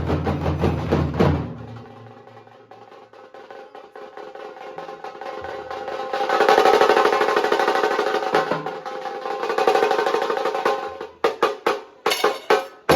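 Nasik dhol-tasha drumming: the deep dhol beats drop out after about a second and a half, leaving fast tasha stick rolls that start quietly and swell loud about halfway through. Near the end the rolls give way to a few separate sharp strokes.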